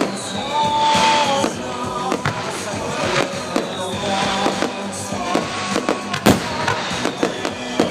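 Fireworks display going off over music, with scattered pops and crackles and one sharp loud bang a little after six seconds in.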